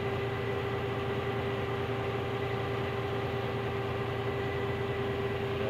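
Motor grader's diesel engine idling steadily: an even low hum with a constant tone held above it.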